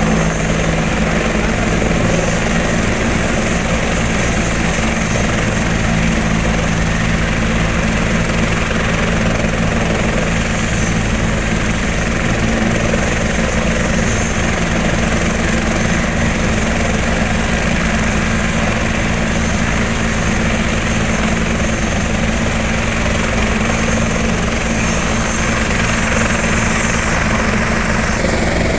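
Ambulance helicopter running on the ground with its rotor turning, a steady, loud rotor and turbine noise with a high-pitched whine held at one pitch throughout.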